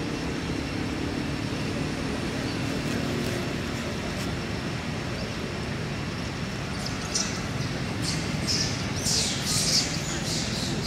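Steady hum of distant traffic, and from about seven seconds in a run of short crackly, wet rustles as a long-tailed macaque lifts a ripe mango from the dry leaves and bites into it.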